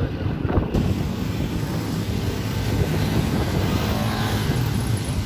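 Harley-Davidson Pan America 1250's V-twin engine running steadily on an off-road ride.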